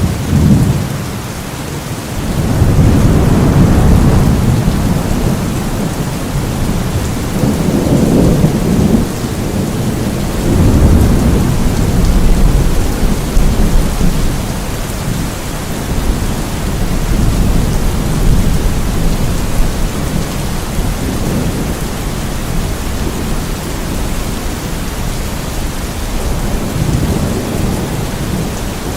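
Steady rain with low rolling thunder that swells and fades several times, loudest in the first half.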